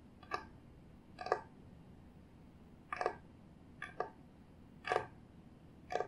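Fingertips tapping on a wooden cutting board, about seven sharp, separate taps at uneven intervals.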